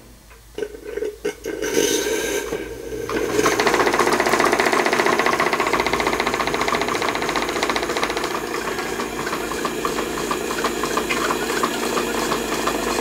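Stuart Turner 10H single-cylinder model steam engine being opened up on its regulator at about 15 psi. After a few clicks and a short hiss of steam, it picks up a little over three seconds in and runs fast with a rapid, even beat, driving a plastic beam-engine water pump by belt.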